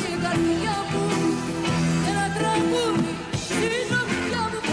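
A woman singing a melodic song with instrumental accompaniment.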